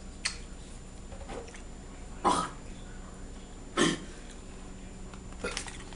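A person coughing and clearing his throat in short bursts, the two loudest about two and four seconds in, from the burn of a ghost chili pepper just eaten.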